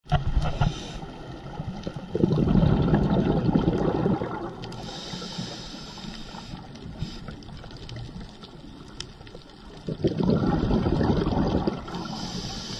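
Scuba diver breathing through a regulator underwater: a long bubbling exhalation about two seconds in and another about ten seconds in, each followed by the hiss of an inhalation.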